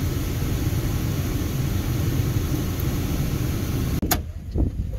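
Steady rumble of a car driving, with engine and road noise. It cuts off abruptly about four seconds in and is followed by a few sharp clicks.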